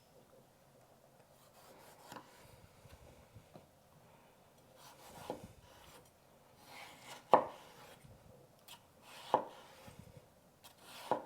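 Kitchen knife cutting tomatoes on a cutting board: a few separate knocks of the blade against the board, roughly every two seconds, with soft slicing in between.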